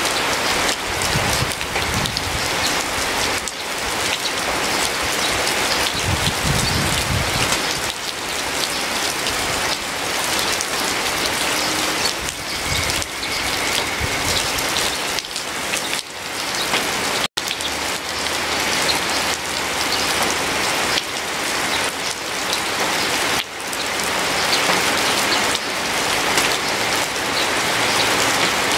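Steady rain falling, an even dense hiss of drops that cuts out for an instant a little past halfway through.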